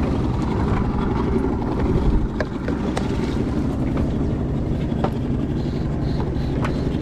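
Steady low rumble of a boat's outboard engine idling, with a few light knocks on the hull.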